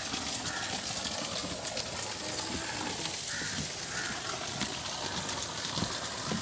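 Birds calling in an aviary: short, harsh calls repeated irregularly about once or twice a second, over a steady background hiss.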